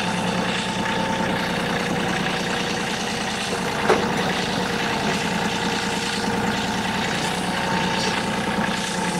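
Kioti compact tractor's diesel engine running steadily at low speed while the tractor creeps forward. There is one short knock about four seconds in.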